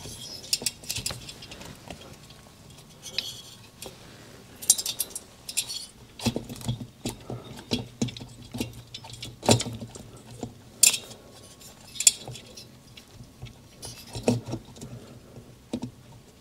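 Scattered light metal clicks, clinks and knocks as the aluminium cylinder of a Suzuki TS250 two-stroke engine is worked down over the piston and rings onto the crankcase studs, a tight fit. Two sharper knocks come a little past the middle.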